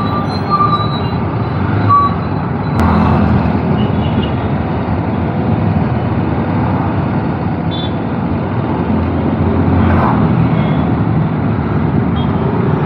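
A BMW G 310 motorcycle's single-cylinder engine running while it rides through city traffic, under a loud, steady rush of road and traffic noise. A couple of short horn beeps come from other vehicles in the first two seconds.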